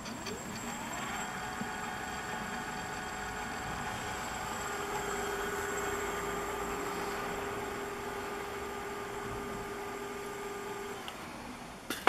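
16-inch 36V 250W brushless geared front hub motor spinning its wheel off the ground: a whine that rises in pitch as it speeds up in the first second, holds steady, then falls away as the motor slows about eleven seconds in. A few sharp clicks come near the end.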